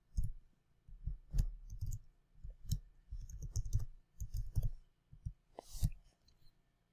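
Computer keyboard typing: irregular runs of key clicks with short pauses, as a login username and password are entered.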